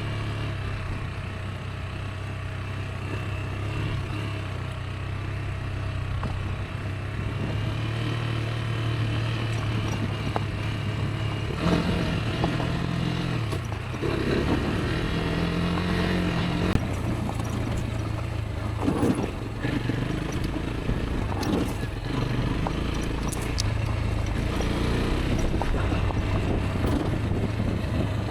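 Rieju Aventura 125's single-cylinder engine running as the bike is ridden off-road, its pitch stepping up and down a few times, with a few short knocks along the way.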